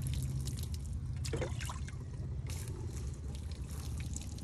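Engine running steadily at low revs, a low even throb, with faint ticking and trickling sounds above it.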